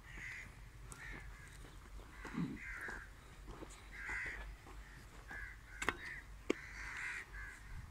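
Crows cawing repeatedly, short harsh calls every half second or so, with two sharp clicks a little past the middle.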